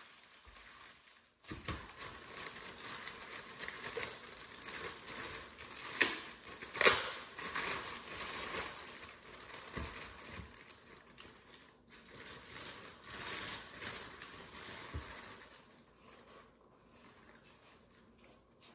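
Clear plastic bag crinkling and rustling as it is handled and bunched up, in irregular crackles, with two sharper, louder crackles about six and seven seconds in. It dies away a couple of seconds before the end.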